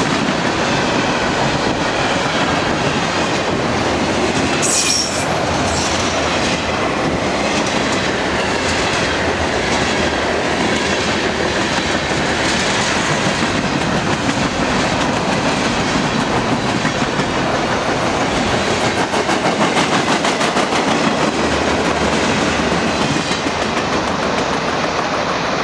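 Freight cars of a mixed freight train rolling past at track speed: a steady rumble and clatter of steel wheels on the rails, with thin high-pitched wheel squeals and a brief sharp screech about five seconds in.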